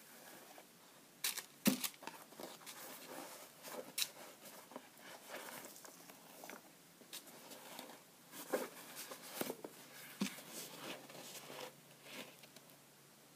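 Hands handling a new Converse Chuck Taylor II low-top canvas sneaker and its packing paper in a cardboard box: irregular rustling and crinkling with occasional light taps.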